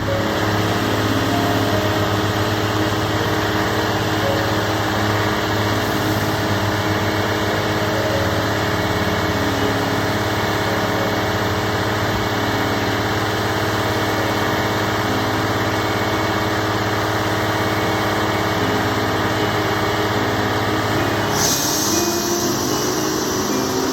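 Engine of construction machinery running steadily at a constant speed. Near the end a higher hiss comes in and the engine note shifts upward.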